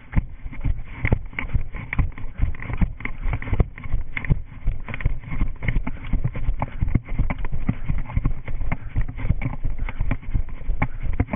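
A runner's footfalls in a quick, steady rhythm, picked up by a camera worn by the runner.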